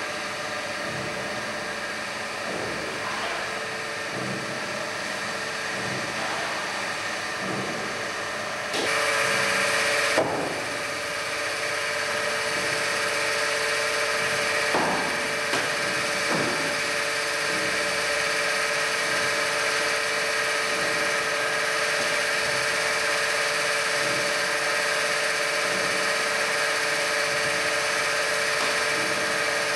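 Steady machine hum with a held whine. It steps up louder about nine seconds in, with a few faint knocks over it.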